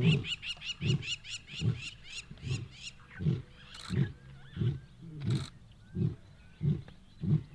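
Male lion roaring: a long run of deep, evenly spaced grunts, about one every two-thirds of a second, the grunting series that closes a roar. High, quick chirps repeat over the first couple of seconds.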